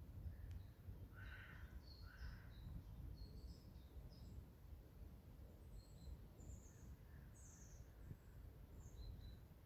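Forest birds chirping faintly: short high chirps scattered throughout, with two lower, stronger calls about one and two seconds in, over a steady low rumble.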